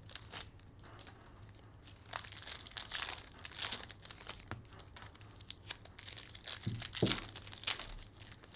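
Foil trading-card pack wrappers being torn open and crinkled by hand, in irregular bursts of rustling that pick up about two seconds in.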